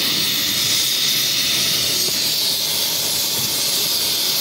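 A steady, loud hiss, strongest high up, with a low rough rumble beneath it and no distinct knocks.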